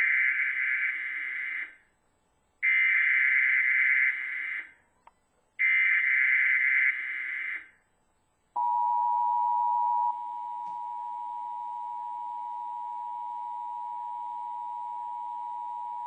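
Emergency Alert System Required Monthly Test playing from a television: three bursts of buzzing SAME header data tones, each about two seconds long with short gaps between. Then the steady attention signal, two tones sounding together at first, carrying on as a single tone after about a second and a half.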